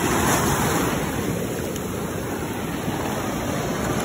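Sea surf washing over a rocky shoreline: a steady rush of foaming water with no pauses.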